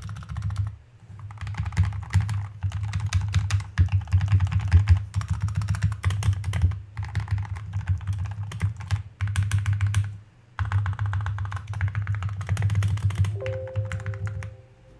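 Fast typing on a freshly built NovelKeys NK65 aluminium mechanical keyboard fitted with NovelKeys Cream linear switches: dense runs of keystroke clacks with short pauses between them.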